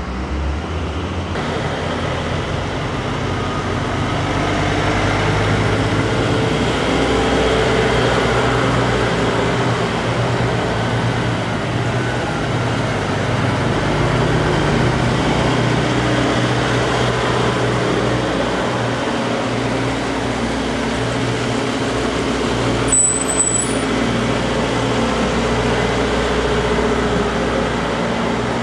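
Diesel semi tractor-trailers driving slowly past in a line, their engines running steadily. A short high squeak sounds about three-quarters of the way through.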